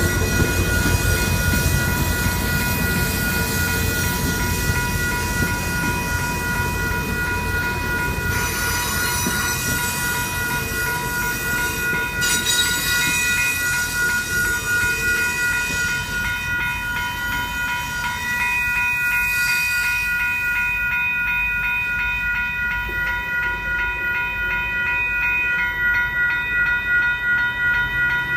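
Railroad crossing's WCH electronic bell ringing steadily while an Amtrak Capitol Corridor passenger train rolls past with a low rumble of wheels on rail. The train's sound thins out in the second half, and the bell stops right at the end as the crossing deactivates and the gates rise.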